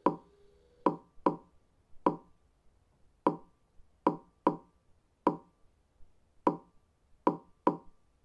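Big-bang V8 engine sound slowed right down, so each firing is heard as a separate sharp bang. There are about eleven bangs, unevenly spaced: some come in quick pairs, others about a second apart, following the engine's uneven big-bang firing order.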